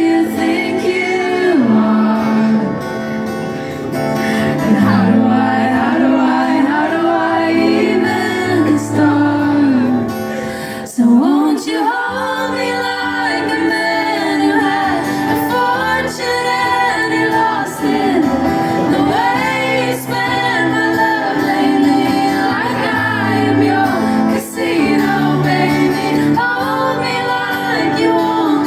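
Live band performing a song: singing over guitar, with a brief drop in the music about eleven seconds in before it carries on.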